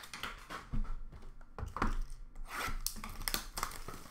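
Hands handling boxes of trading cards and their packaging on a counter: scattered light taps, clicks and rustles.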